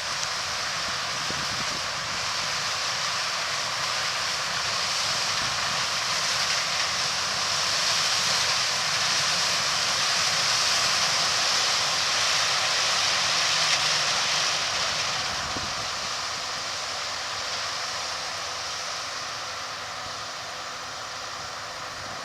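Combine harvester cutting corn, a steady mechanical rush that grows louder toward the middle and fades as the machine moves away.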